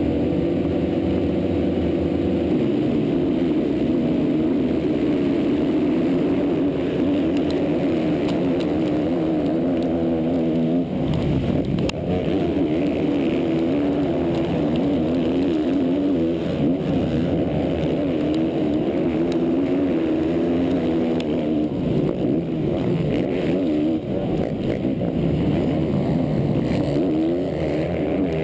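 Onboard sound of a motocross bike's four-stroke engine. It is held at steady high revs for the first couple of seconds, then revs up and down through the gears at race pace, with other bikes in the pack around it.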